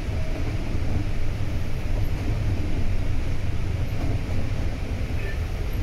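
Volvo B9TL double-decker bus on the move: a steady low rumble of its diesel engine and road noise, holding an even pace.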